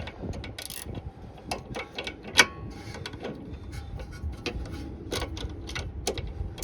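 Irregular metallic clicks and light taps of wrench work on a car's rear sway bar link as its nut is fitted, with one sharper click about two and a half seconds in.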